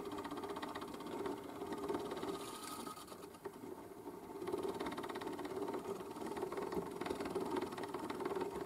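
Spring-wound clockwork gramophone motor, built to look like a Garrard 30, running with its turntable turning: a steady, fast mechanical buzz from the gearing and spinning governor. It dips somewhat about three seconds in. The speed lever is being nudged up from the slowest setting, and the motor is noisy.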